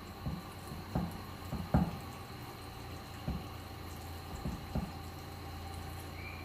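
Kitchen tap water running over saba bananas in a metal pot as they are rinsed by hand. A few light knocks come from the bananas against the pot.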